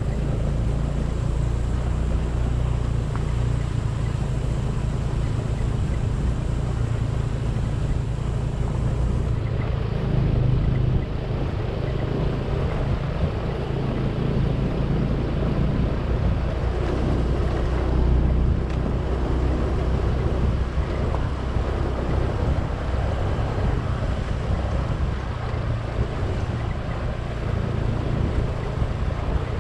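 Motorcycle riding along a rough dirt track: a steady low engine drone with wind buffeting the microphone.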